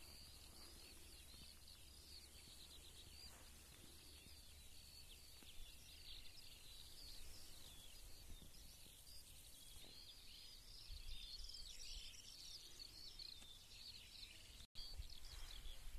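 Faint chorus of songbirds, many overlapping high chirps and warbles, over a low steady rumble. The sound drops out for an instant near the end.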